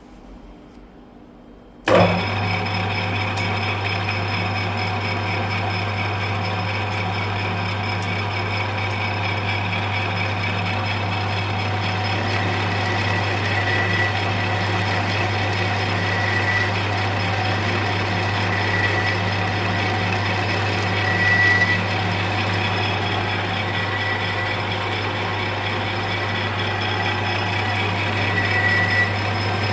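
A lathe switched on about two seconds in, then running at a steady speed with a constant low motor hum and a faint recurring high tone.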